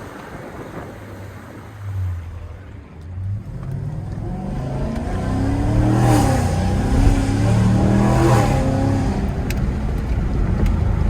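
Camaro SS 6.2-litre V8 breathing through freshly fitted 2-inch headers, an X-pipe and the stock muffler. It starts low, then revs up twice, peaking about six and eight seconds in, and ends with a loud, steady drone.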